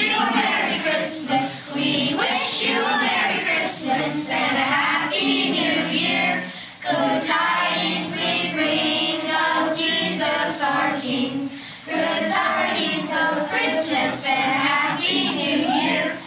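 A group of children singing together as a choir, in long sung phrases with two short breaks between them.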